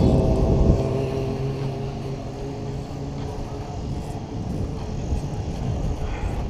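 A motor vehicle's engine passing close by, loudest just at the start and fading away over the first two or three seconds, over steady wind rumble on the microphone of a moving bicycle.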